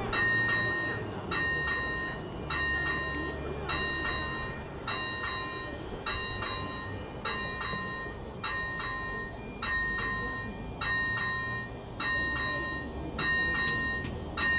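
Electronic warning bell (ZV-01) of a Czech AŽD 71 level-crossing signal ringing, one bell-like stroke about one and a half times a second. It means the crossing is closed for an approaching train.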